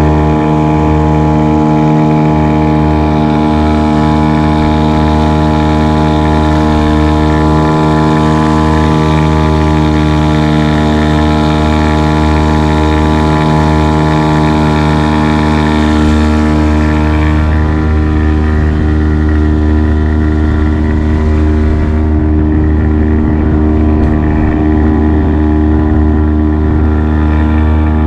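Outboard motor on a small open boat running steadily at cruising speed, one even engine note throughout, with a hiss of rushing water and wind above it that fades about two-thirds of the way through.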